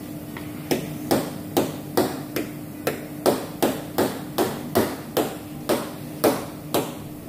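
A hard object striking a painted car body panel with a three-layer ceramic coating, over and over in sharp knocks about two a second, as a toughness test of the coating.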